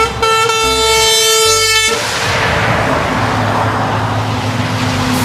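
A truck air horn blasts for about two seconds, several notes sounding together as a chord. It cuts off, and a steady rushing hiss with a low hum carries on, like a truck engine running.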